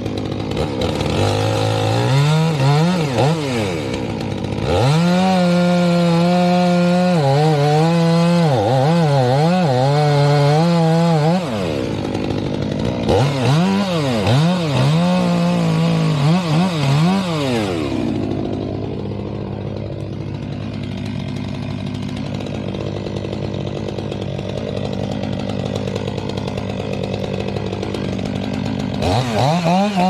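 Stihl MS 500i two-stroke fuel-injected chainsaw revving and cutting wood, its pitch dipping and recovering as the chain bites under load. About two-thirds of the way through it drops to idle, then revs up again near the end.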